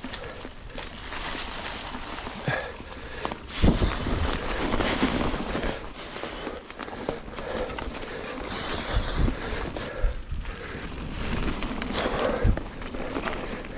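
Mountain bike tyres rolling over dry fallen leaves on a dirt trail, an uneven rustling noise, with the bike knocking over bumps now and then, the hardest knock about three and a half seconds in.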